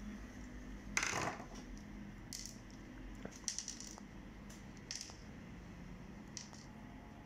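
Small plastic parts of an Epson DS-1630 scanner's ADF roller assembly clicking and clattering as the assembly is taken apart by hand, with a louder clatter about a second in followed by a few lighter scattered clicks.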